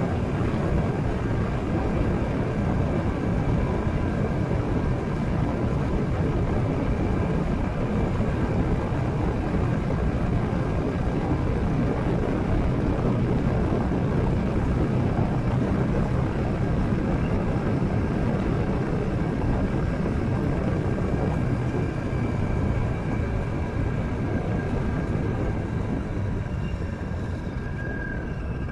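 Motorcycle riding at steady road speed: wind rushing over the microphone with the engine's drone beneath it, easing off slightly near the end.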